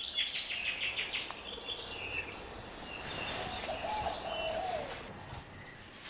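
Birds chirping and singing, with a fast run of repeated high notes in the first second or so and a lower wavering call a little after halfway.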